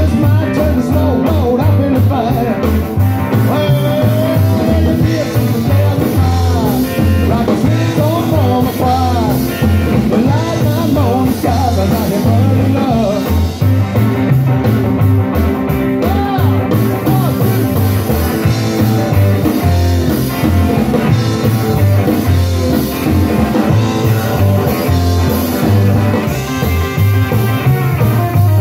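Live rockabilly band playing an instrumental break: a hollow-body electric guitar plays a lead line with bending notes over upright bass and a drum kit keeping a driving beat.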